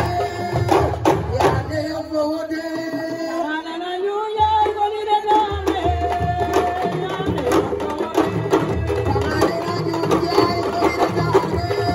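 A woman singing into an amplified microphone in long, ornamented held notes, over fast hand drumming on sabar drums. The drums drop back about two seconds in while she holds a long rising note, then come back in.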